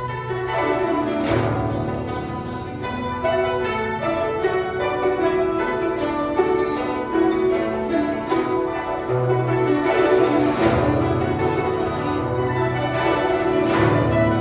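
Guzheng (Chinese zither) ensemble playing a flowing melody of plucked notes.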